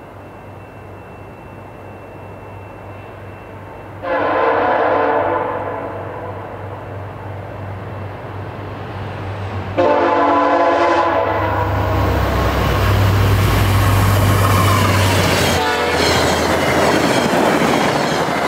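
VIA Rail F40PH-2 diesel locomotive 6410 sounds its horn as it approaches at about 70 mph: a short blast about four seconds in, then a longer one near ten seconds. The train then passes close and loud with a heavy rumble, and the passenger coaches follow with a steady rush and rail clatter.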